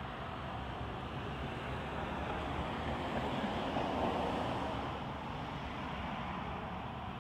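Distant vehicle noise, a steady rumble that swells about four seconds in as something passes and then fades.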